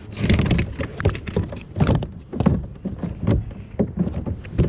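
A string of irregular knocks and thumps on a kayak hull, coming about every half to one second.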